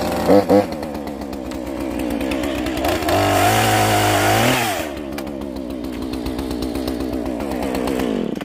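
Two-stroke chainsaw running, with two quick throttle blips at the start. It is revved high for about a second and a half a little past the middle, then drops back to a fast idle and cuts off abruptly at the end.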